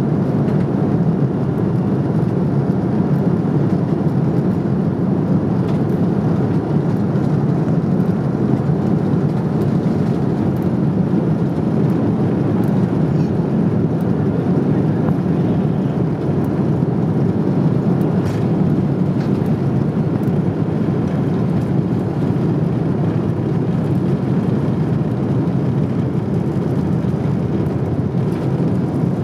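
Airbus A330 cabin noise while the airliner rolls on the ground: a steady, even rumble of the jet engines and airframe, heard from a window seat over the wing. It holds level throughout, with no spool-up to full power.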